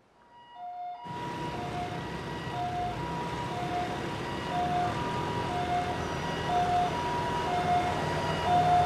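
Ambulance siren in a two-tone high–low pattern, switching pitch about twice a second, over a steady bed of traffic and engine noise. It fades in during the first second and grows louder toward the end.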